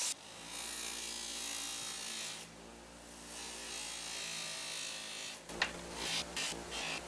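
Bench grinder motor running steadily while a micarta knife handle is rubbed first on the belt grinder and then against a spinning cloth buffing wheel. Irregular scuffs and ticks come in over the last second and a half as the handle is worked against the wheel.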